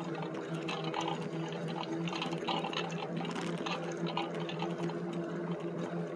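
Electric bike riding along a paved road: a steady low hum from the motor under a hiss of tyre and road noise, with many small rattling clicks.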